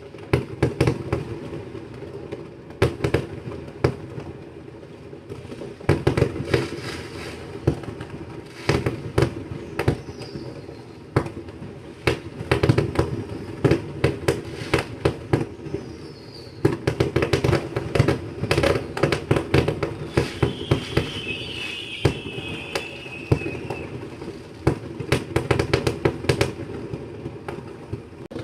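New Year's fireworks going off: rapid volleys of sharp bangs and pops over a low rumble, in bursts every few seconds. A faint whistle falls a couple of times, and a stretch of crackling comes about two-thirds of the way through.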